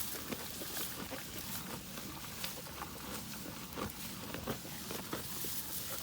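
Cattle eating hay: irregular crunching, tearing and rustling as they pull at and chew the hay, with scattered sharp snaps.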